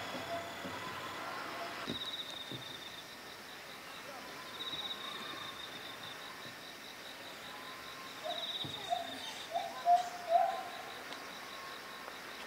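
Outdoor ambience dominated by an insect's high-pitched, finely pulsed trill that comes and goes in stretches of a second or two. A few short, louder, low-pitched calls come about nine to ten seconds in.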